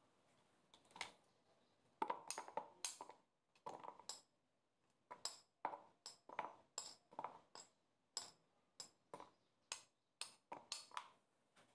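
White plate knocking against the rim of a bowl in a string of short clinks, roughly two a second, as cooked rice is tipped and shaken off it into the bowl.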